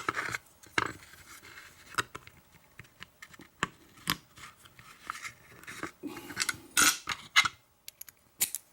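Small metal clicks, clinks and short scrapes of hand tools working on an American 1100 padlock as it is taken apart, scattered irregularly, with a cluster of louder clicks about six to seven seconds in.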